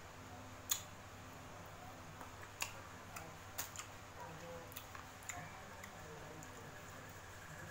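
A few scattered sharp clicks, the loudest a little under a second in, over faint steady room noise with a low hum.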